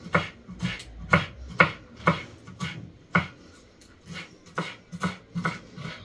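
Kitchen knife chopping garlic cloves on a wooden cutting board: sharp taps about twice a second, briefly fainter a little past halfway.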